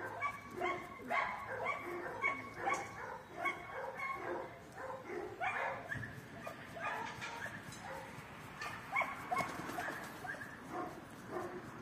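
A dog barking and yipping in short repeated calls.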